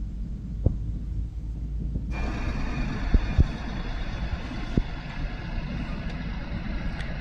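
Wind buffeting the microphone: a low rumble with irregular thumps. About two seconds in, a steady hiss joins abruptly and carries on.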